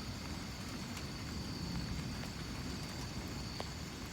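Distant thunder rumbling low and continuously under steady rain, with a few light drop ticks and a steady high chirr of crickets.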